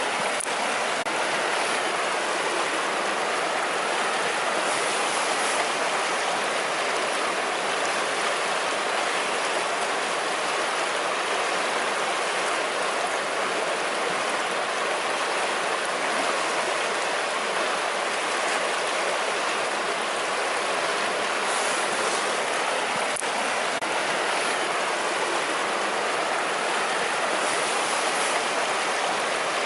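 River water rushing steadily, a constant even noise of flowing water with no change through the stretch.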